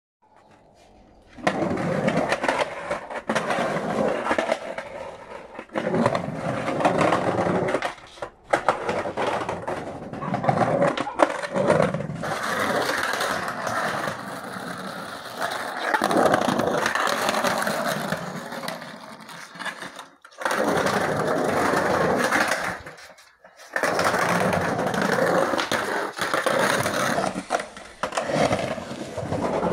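Skateboard wheels rolling over concrete ramps and transitions, a steady rumbling roll with occasional sharp knocks. It drops out briefly a few times.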